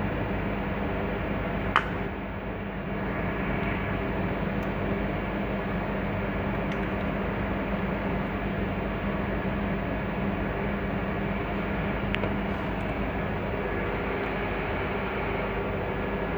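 A car starter giving a single sharp click a couple of seconds in, without cranking the engine, over a steady hum and hiss: the sign of a faulty starter. A fainter click follows near the end.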